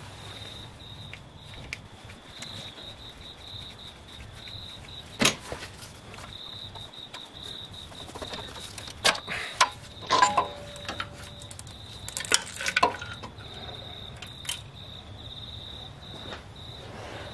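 Scattered metallic clinks and clicks as the timing chain and camshaft sprocket are worked loose on a Nissan QG18DE engine's cylinder head. A few come close together in the middle, one with a brief ring. A faint, steady, high-pitched trill runs underneath.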